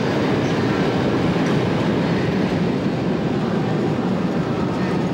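Passenger train carriages rolling along a station platform: a steady, dense noise of wheels running on the rails.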